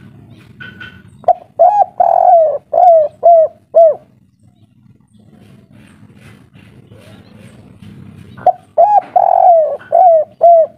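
Spotted dove cooing in the 'kuk 3' style: two phrases, one about a second in and another about 8.5 s in. Each has a few short notes, a long drawn note, then three short 'kuk' notes.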